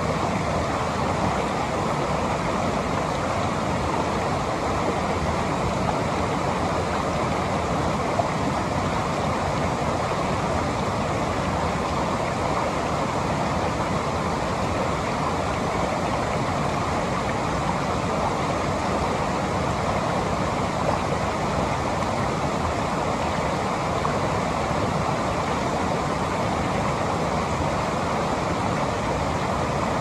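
Steady rush of a river and waterfall, even and unbroken throughout.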